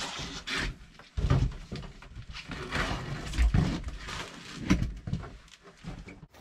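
Stored clutter being shifted and piled up by hand: rustling and scraping with a string of knocks and bumps.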